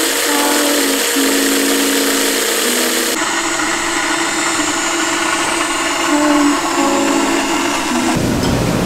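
Electric blender running steadily, grinding the chili sauce ingredients.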